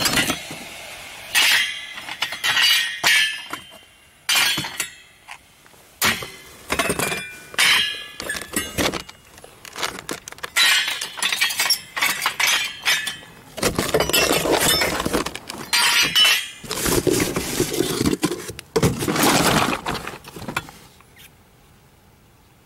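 Aluminium heat sinks and other mixed metal scrap being sorted by hand: a run of metallic clattering and clinking as the finned pieces knock together, in separate bursts that die away about 21 seconds in.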